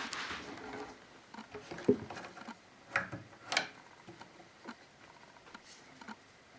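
Scattered light clicks and knocks with faint rustling, from hands handling and adjusting the blade guide of a homemade bandsaw.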